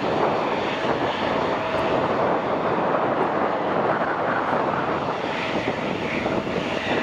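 Embraer E175 jet airliner's twin turbofan engines running steadily at taxi power, a continuous even rush of jet noise.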